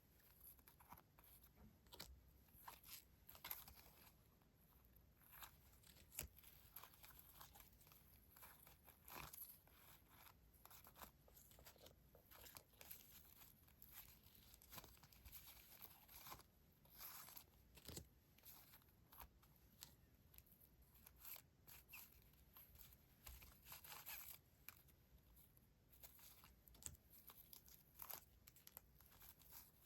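Quiet, irregular rustling and crinkling of paper stationery and wrappers being handled, with small taps and clicks.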